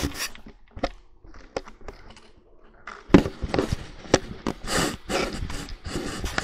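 Camera handling noise as it is moved over bedding: a run of sharp crackles, knocks and rustles, sparse at first and then denser and louder from about halfway.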